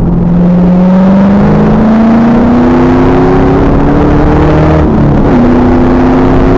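Pontiac Trans Am Firehawk's LS1 V8 pulling hard through its SLP exhaust, the engine note climbing steadily for about five seconds and then levelling off. The recording is very loud and distorted.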